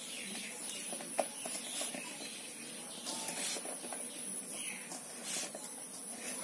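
A hand tossing cut raw mango pieces with ground spice powder in a steel bowl, giving a few soft rustles, over a steady high insect trill.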